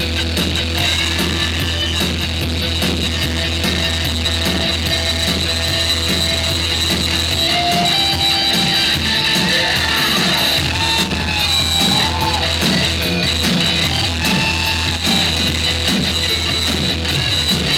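Live rock music from a band, an instrumental passage with guitar over a steady beat and no singing.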